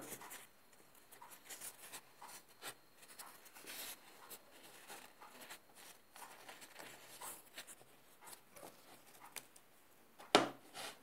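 Thin filo (baklava) pastry sheets rustling and crinkling softly as they are folded and pressed into a cup by hand, with a single knock near the end.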